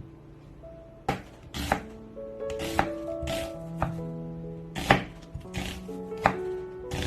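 Knife cutting food on a cutting board: a series of irregular chops, sharp knocks mixed with longer slicing strokes, over background music.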